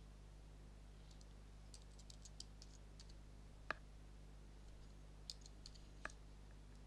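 Faint computer keyboard keystrokes in short, irregular runs, with two sharper key clicks, the louder about three and a half seconds in and another about six seconds in.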